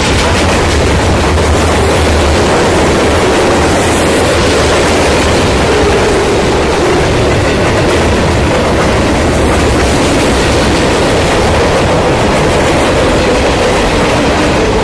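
Loaded freight cars (covered hoppers, boxcars, tank cars and gondolas) rolling past close by: a loud, steady rumble and rattle of steel wheels on the rails.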